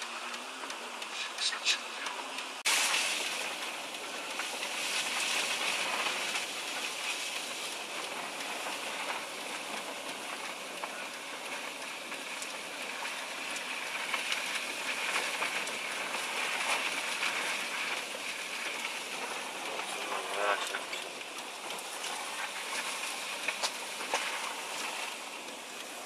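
About three seconds in, the sound changes abruptly to steady road and tyre noise heard from inside a moving car, a hiss from the tyres on a wet road.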